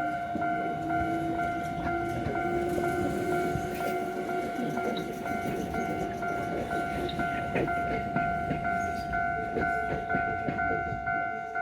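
Railroad crossing warning bell ringing steadily in an even repeating pattern while a train rumbles and clatters through the crossing.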